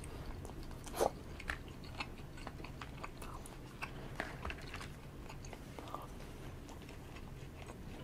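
A person biting and chewing bento food taken up with chopsticks: small wet mouth sounds and sharp clicks, the loudest about a second in. Underneath runs a steady low rumble of typhoon wind outside.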